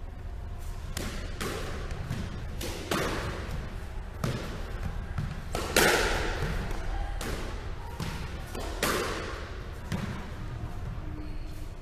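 Squash rally: a squash ball struck by rackets and smacking off the court walls, a series of sharp hits about a second apart that ring in the court's echo, the loudest about six seconds in.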